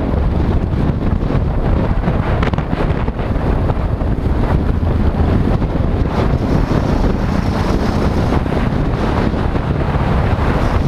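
Steady, loud wind rush buffeting the microphone of a camera on a moving motorcycle, over the dull rumble of riding in traffic.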